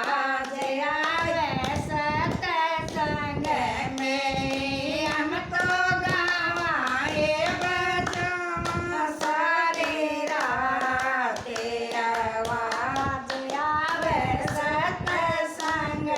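Haryanvi devotional bhajan sung in a high voice to a repeating melody, with hand clapping keeping time.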